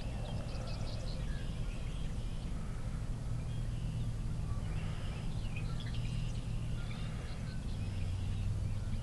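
Birds chirping and calling on and off over a steady low hum, which drops slightly in pitch about eight seconds in.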